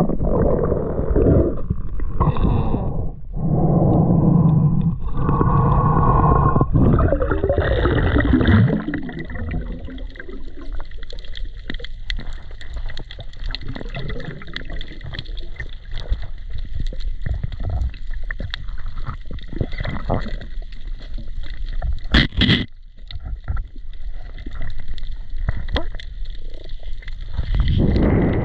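Underwater sound from an action camera on a snorkelling dive over coral reef. For the first eight seconds there is loud, muffled water rushing and gurgling. Then it turns quieter, with faint crackling clicks and a steady high whine, and one sharp click a little past two-thirds of the way through.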